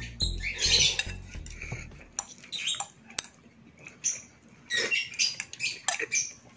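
Ramen noodles being slurped, with a fork scraping and clinking against a glass bowl. Background music plays underneath and stops about two seconds in.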